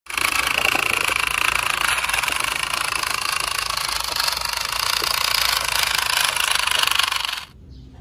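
Small electric motor and gears of a toy RC dump truck buzzing steadily as it drives, cutting off abruptly near the end.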